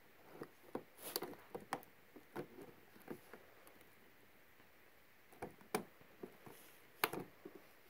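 Scissors snipping and prying at the clear plastic window of a cardboard doll box: faint, scattered clicks and crinkles, with sharper snaps about a second in, near six seconds and just after seven.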